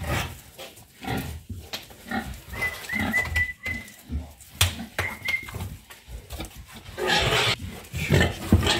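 Young boars grunting in short, irregular bursts, with a louder, rougher stretch about seven seconds in.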